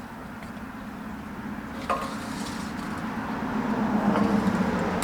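A low motor hum that grows louder toward the end, with one light click about two seconds in.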